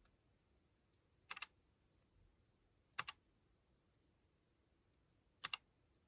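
Keychron K1 keyboard with linear red switches: three single keystrokes a second and a half to two and a half seconds apart, each a quick double click as the key goes down and comes back up.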